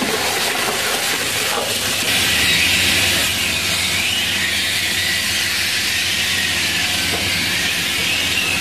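Grupo SPR RS 140-160 twin-shaft tyre shear running, its toothed cutter shafts turning and shredding tyre rubber: a steady mechanical noise with a strong hiss, a little louder about two seconds in.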